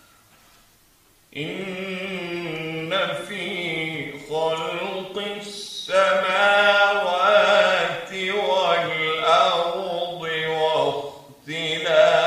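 A man reciting the Quran in Arabic in a slow, melodic tajweed chant, starting about a second in after a brief silence, in long drawn-out phrases with short breaks between them.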